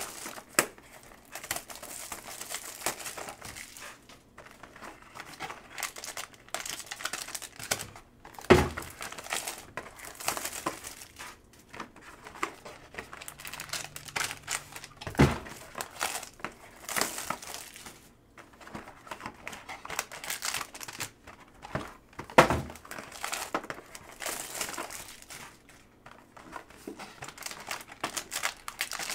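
Cardboard trading-card boxes being opened and handled, with a foil card pack crinkling and rustling. Three sharp knocks stand out, spread through the stretch.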